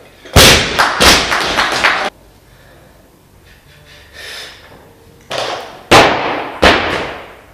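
Loaded barbell with bumper plates dropped from overhead onto a lifting platform, crashing down and bouncing several times before cutting off abruptly. A few seconds later come two more heavy thuds during the next lifter's snatch.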